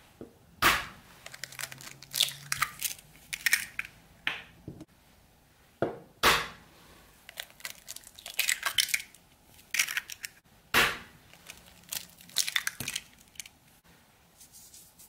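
Three eggs cracked one after another: each gives a sharp tap, followed by a short run of crackling as the shell is pulled apart.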